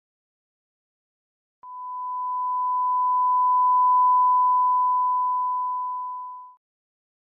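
A single steady electronic beep, one pure tone held for about five seconds, starting about one and a half seconds in, swelling louder and then fading out.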